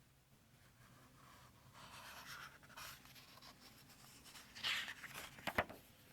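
Paper rustling as the pages of a book are handled and turned, with a sharp tap near the end.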